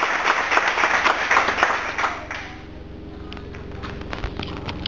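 Audience applauding with many hands clapping. It dies away a little over two seconds in.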